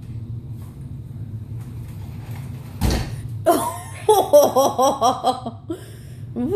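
One sharp knock about three seconds in, as the plastic baby walker bumps against the closet door. A couple of seconds of quick, short, repeated voice-like calls follow.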